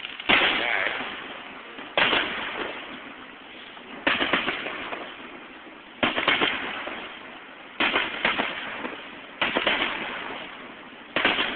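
Aerial firework shells bursting in a steady series, about one every two seconds and eight in all. Each is a sudden bang followed by a fading tail. Captured on a cell phone, which dulls the highs.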